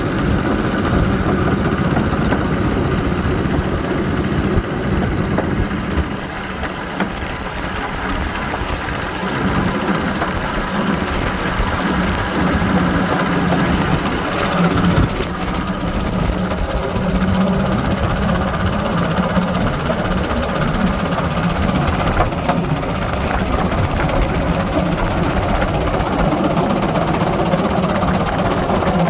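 Motorized railcart running along the rails: a loud, steady engine drone mixed with the rumble of its wheels on the track.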